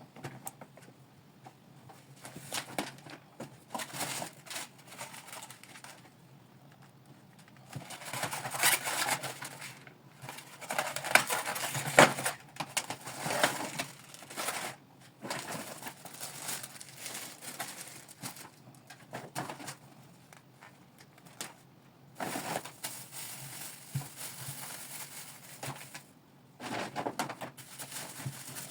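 Irregular rustling and crinkling of bags and packaging, with light knocks of items being handled and set down, as shopping is unpacked. The busiest stretch comes about a third of the way in, with one sharp knock in the middle of it.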